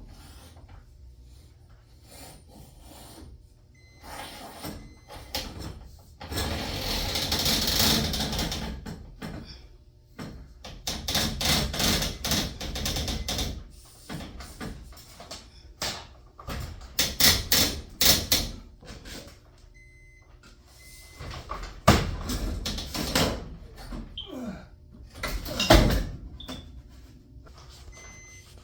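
Clanks, rattles and scraping from hand work on a garage door's metal hardware (rollers, brackets and tools), with a longer scraping stretch early on and two sharp metal knocks near the end.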